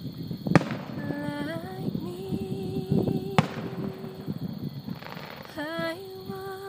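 Aerial fireworks shells bursting: a sharp bang about half a second in and another about three seconds later, with crackling around them. A held humming tone sounds underneath, starting again near the end.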